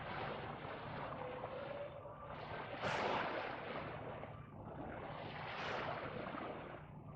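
Small waves washing onto a sandy shore, the wash swelling and fading twice, about three seconds apart, over a low steady rumble.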